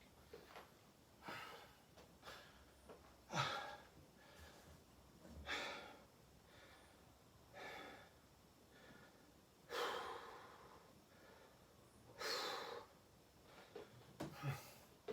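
A man breathing heavily while recovering between sets of burpees, a hard breath about every two seconds.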